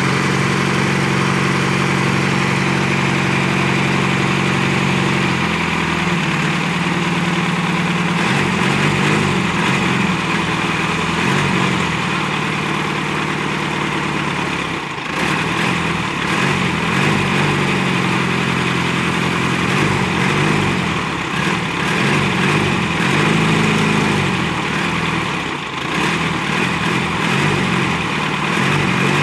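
Caterpillar 428C backhoe loader's four-cylinder diesel engine idling steadily. About five seconds in the engine speed changes, then keeps rising and falling as the machine is worked.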